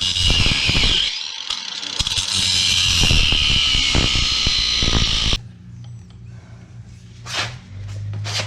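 A power tool working metal, giving a loud, high-pitched grinding hiss that cuts off abruptly about five seconds in, leaving a quieter low hum.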